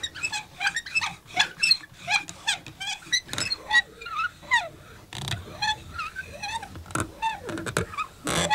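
Rolling pin working pasta dough flat on a floured board, giving off a rapid run of short squeaks and creaks with the strokes, many of them gliding up or down in pitch.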